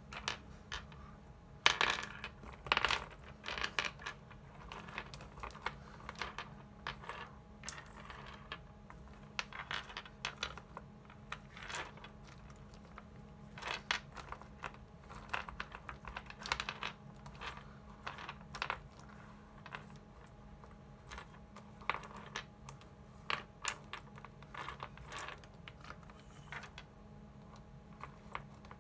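ELNA 680 µF 35 V aluminium electrolytic capacitors being sorted by hand, their metal cans clicking and clinking against each other in quick, irregular bunches. The loudest clacks come about two to three seconds in.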